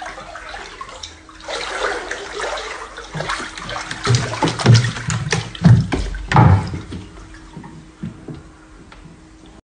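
Floodwater sloshing and splashing in a flooded room, irregular and loudest in a run of splashes from about four to seven seconds in, over a faint steady hum.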